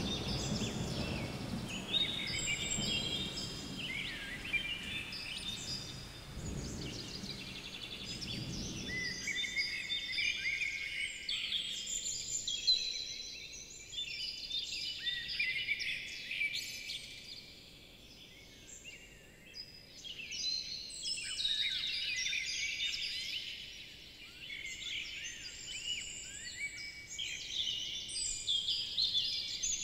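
A chorus of songbirds singing, many overlapping chirps and trills. A low rumble underneath fades out about nine seconds in.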